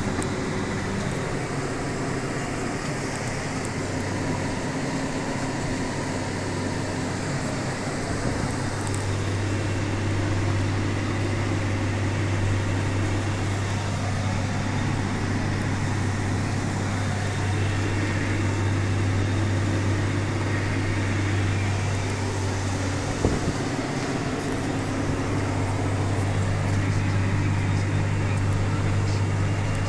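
Massey Ferguson 6480 tractor engine running steadily under load, heard from inside the cab while pulling a Lely Terra power harrow through peat. There is one short knock about two-thirds of the way through.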